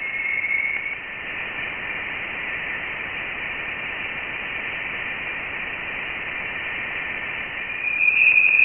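Voyager 1 space-probe data played back as sound: a steady static hiss with a thin whistling tone running through it, growing louder near the end. It is seven months of recording compressed into seconds, taken as the probe reached the edge of the Sun's heliosphere.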